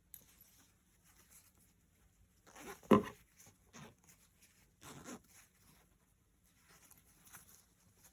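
Intermittent rustling and handling sounds in a small room, with one sharp knock about three seconds in and a few softer scrapes after it.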